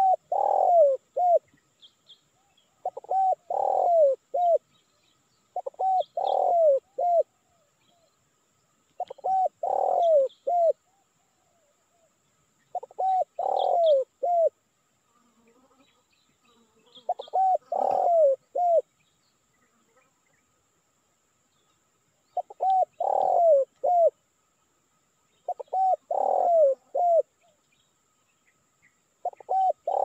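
Spotted dove (tekukur) cooing its song, a short phrase of three or four coos with one longer falling note, repeated nine times about every three to four seconds. It is the call a male uses to challenge rivals and lure wild doves. Faint high chirps of small birds sound between the phrases.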